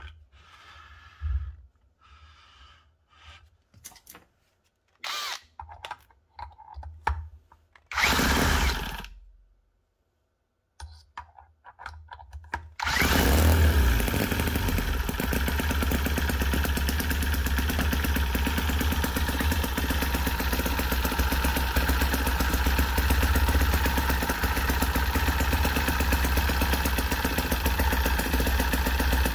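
Clicks, handling noises and a short whir, then about halfway through the miniature 9cc four-stroke air-cooled V-twin model engine, spun up with a cordless drill as starter, catches and runs steadily with a fast, even buzz.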